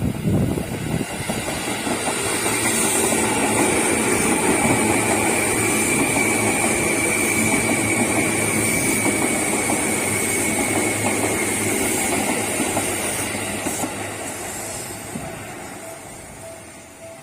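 Electric commuter train passing close by. The noise builds over the first couple of seconds, holds steady with a high whine through the middle, and fades over the last few seconds before cutting off suddenly.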